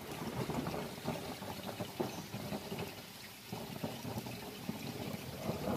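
Rain pattering and dripping during a thunderstorm: a dense crackle of many small drops. A low rumble of thunder starts to swell right at the end.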